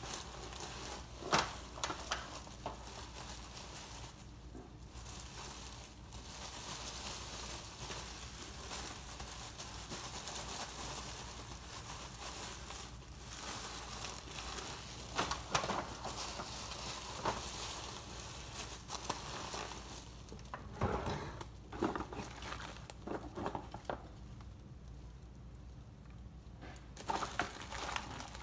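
Plastic oven bags crinkling and rustling as they are handled, twisted and tied shut, with irregular sharper crackles.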